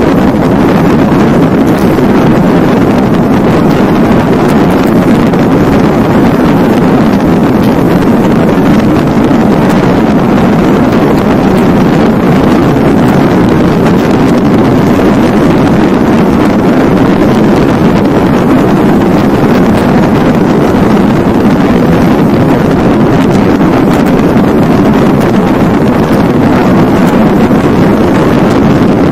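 Loud, steady wind rush on the microphone of a camera riding on a moving road vehicle, mixed with road noise.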